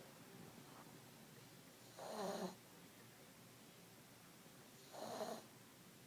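Sleeping pet snoring, two short rasping snores about three seconds apart.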